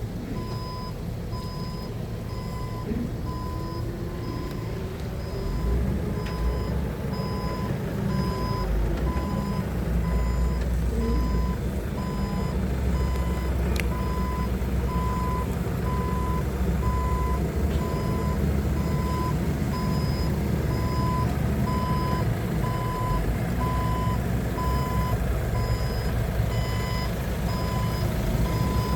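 Forklift warning alarm giving steady, evenly spaced beeps over the forklift's engine running underneath; the engine gets a little louder about six seconds in.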